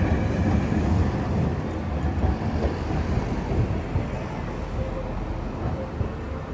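City street traffic noise, with a streetcar passing close at first, then settling into a steady traffic sound.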